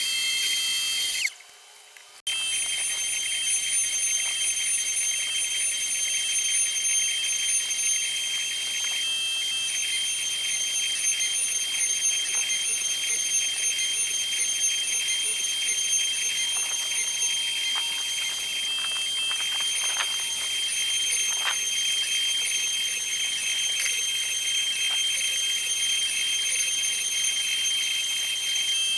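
500 W spindle of a LUNYEE 3018 Pro Ultra desktop CNC router running at high speed: a steady high-pitched whine. It drops out briefly about a second in, and a few faint clicks come through in the middle.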